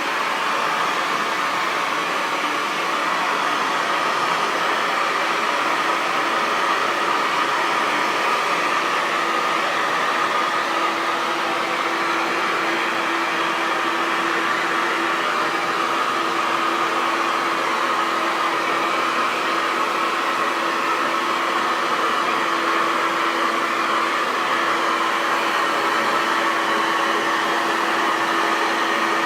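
Hair dryer running continuously: a steady blowing rush with a faint motor hum that becomes more noticeable partway through.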